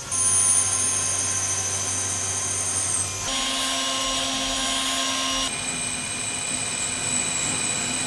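CNC machine drilling through holes with a 5 mm solid carbide drill under flood coolant: a steady high-pitched spindle whine over coolant hiss. The sound changes abruptly about three seconds in and again about five and a half seconds in, as the drilling moves from cast iron to aluminium to stainless steel.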